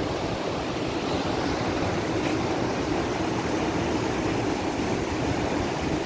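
Tomara waterfall's water falling, a steady, even rush with no break.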